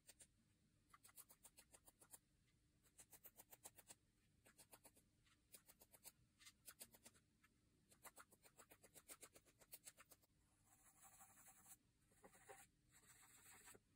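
Faint runs of quick light taps, about ten a second, as a paintbrush loaded with white paint is tapped to flick spatters of paint onto paper. For the last few seconds the tapping gives way to a steady scratchy rustle.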